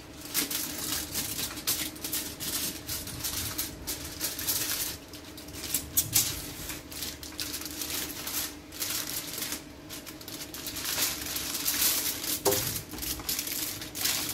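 Aluminium foil crinkling in irregular crackly rustles as hands fold and crimp it tightly around a fish, over a faint steady hum.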